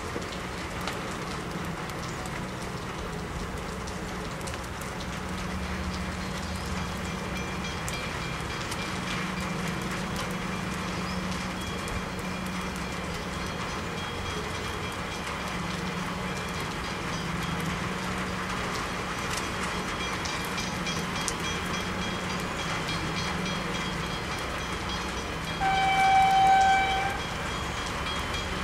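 Diesel train running with a steady low drone, and a single horn blast of about a second near the end.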